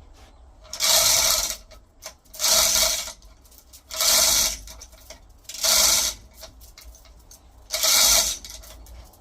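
Manual chain block hoist being worked in strokes: five rasping pulls of the chain running through the block, each under a second long, with a slightly longer pause before the last.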